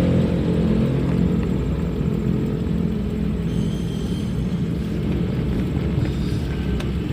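A minibus engine and road noise heard from inside the vehicle while it drives. The engine's hum is strong for about the first second, then fades into a steady low rumble.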